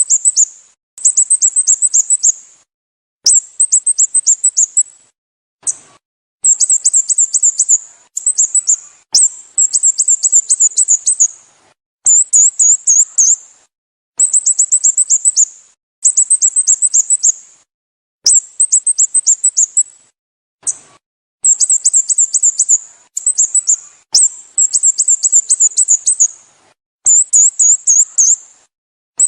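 Sooty-headed bulbul calling: runs of rapid, very high-pitched chirps, each run lasting one to two seconds, repeated every couple of seconds with brief gaps and the odd single note between.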